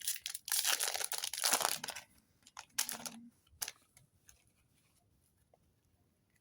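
Foil booster-card pack being torn open: a crinkly tearing for about two seconds, then a few small rustles and taps as the pack is handled.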